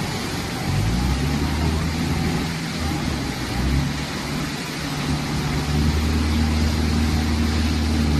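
Fast floodwater rushing in a steady torrent, with a motor vehicle's engine running steadily close by, its hum coming in about a second in.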